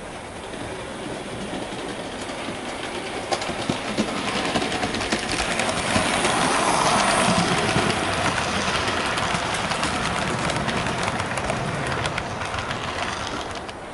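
Hornby Princess Coronation class OO gauge model steam locomotive hauling a rake of coaches along model track. A steady running rumble with sharp clicks as the wheels cross rail joints, growing louder as the train approaches and loudest as the locomotive passes about six seconds in.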